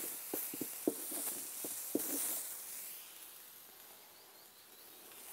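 Faint hiss with a few soft clicks and taps over the first two seconds, then fading almost to silence.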